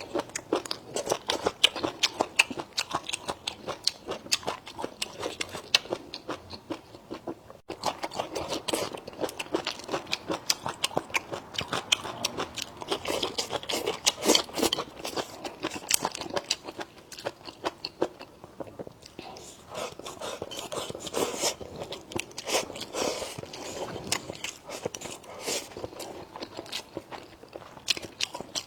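A person chewing and biting food close to the microphone: a dense, continuous run of crunches and sharp clicks, with a brief break about eight seconds in.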